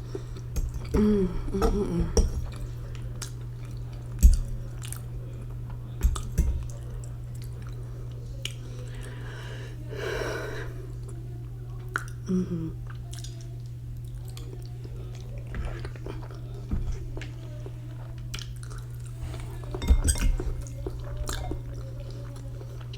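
Close-up mouth sounds of a person chewing and eating ramen noodles with fried egg: wet chewing and small clicks, a few sharper knocks, and brief voice sounds in between, over a steady low hum.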